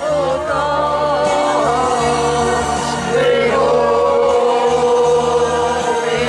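A man singing into a microphone over a backing track, holding one long note through the second half.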